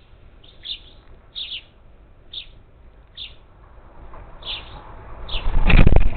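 Parakeets at a feeder giving short, falling calls about once a second. A loud rushing noise swells over the last two seconds, drowning them out near the end.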